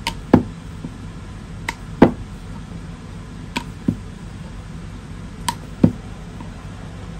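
Wooden rolling pin clicking and knocking against a round wooden rolling board as puri dough is rolled out: a sharp click followed by a duller knock, repeated about every two seconds, over a low steady hum.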